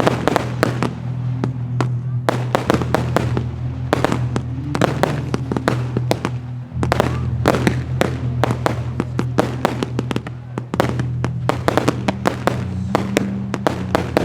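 Fireworks display: a dense, irregular run of sharp bangs and crackles from shells bursting several times a second, over music with sustained low notes.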